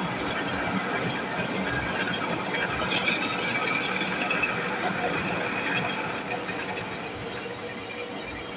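Drill press running, its bit cutting through a semi-truck clutch disc; a continuous mechanical whir and grind, with a thin high squeal of the cut about halfway through.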